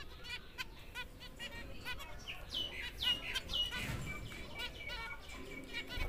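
Zebra finches calling: a quick run of short, nasal calls, then about three louder calls that fall in pitch around the middle.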